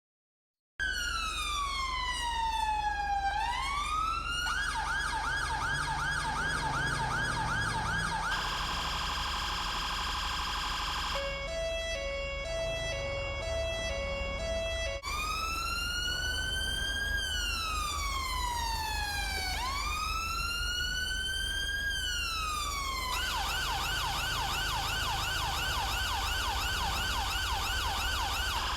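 UK police car electronic siren cycling through its tones. It opens with a slow rising-and-falling wail, moves to a fast yelp of about three sweeps a second and a brief steady high tone, then a low two-tone 'nee-naw'. The wail and yelp then return, all over a steady low hum.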